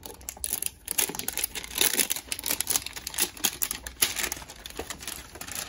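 Clear plastic shrink wrap crinkling and tearing as it is picked open and peeled off a trading-card hanger box, a run of quick, irregular crackles.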